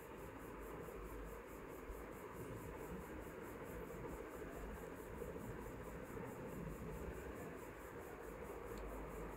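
Faint steady background hiss: room tone, with no distinct sound standing out.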